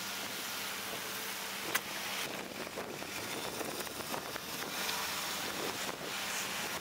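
Wind rushing over the microphone, with a faint steady low hum from the ferry's machinery underneath and a single sharp click a little under two seconds in.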